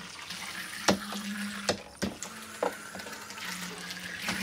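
Zuru Micro Boats, tiny water-activated toy speedboats, racing around a water-filled plastic track: a faint steady motor hum over churning water, with a few sharp clicks in the first few seconds.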